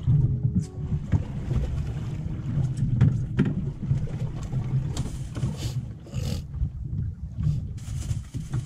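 Wind buffeting the microphone and sea noise on an open boat deck: a steady low rumble, with a few louder rushing gusts or splashes around the middle and near the end.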